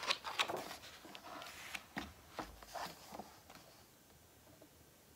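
A page of a hardcover picture book being turned by hand: a quick paper swish and rustling with a few soft taps as the book is settled flat, loudest at the start and dying away after about three seconds.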